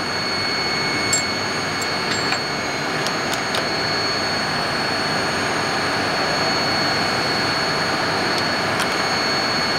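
Steady machine-shop noise from running machinery, a hiss with a high whine over it, with a few light metal clicks as jaw screws are driven into a steel vise with a hand hex driver.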